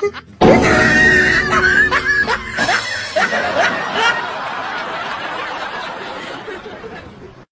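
People laughing, starting about half a second in and slowly fading away, over a noisy background.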